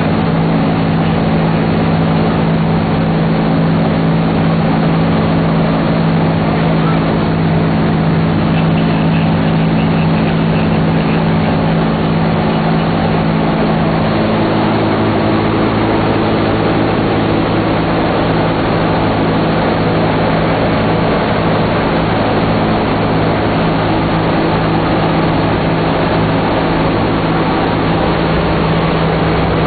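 Four radial engines of a B-17 Flying Fortress running steadily in level flight, heard from inside the fuselage as a loud, unbroken drone with several steady low tones over the rush of air and propellers.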